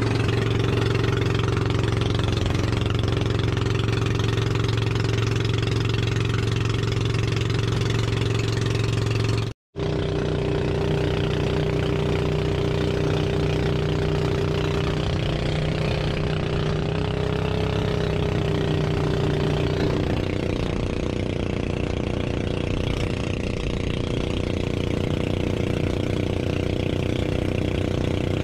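Outrigger boat's engine running steadily under way, with water rushing and spraying along the hull. The sound cuts out for a moment about a third of the way in.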